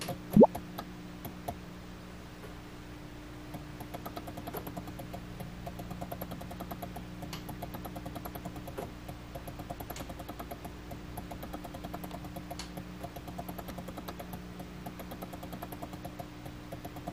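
Air-bubble clock running: a steady low hum, and from about three and a half seconds in a fast, even run of small clicks from the mechanism releasing air bubbles into the glycerin. About half a second in, a short, loud rising tone.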